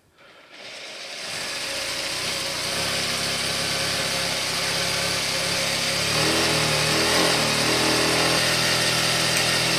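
Zoje ZJ7000E industrial sewing machine running at speed with the presser foot up and no fabric, driving its bobbin winder to fill a bobbin. It winds up over about the first second, runs steadily, and stops at the end once the bobbin is wound.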